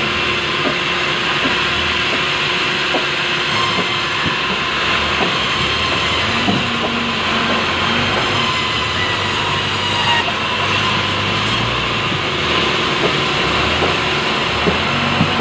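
Sawmill band saw running steadily as it rips lengthwise through a large, soft-wooded log: a dense, even machine noise with a steady hum and scattered light knocks.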